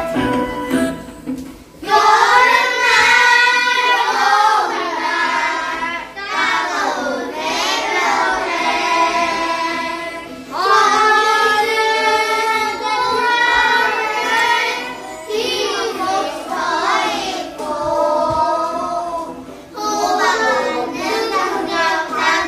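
Young children singing a Korean gugak (traditional-style) children's song together with instrumental accompaniment. The singing comes in about two seconds in, after a short instrumental passage, and runs in phrases with brief pauses between them.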